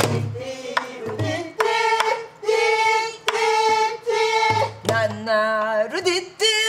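A woman singing Korean gueum, wordless vocables that imitate instruments, in long held notes with a shaking vibrato about five seconds in. A buk barrel drum accompanies her with deep thumps and sharp clicks.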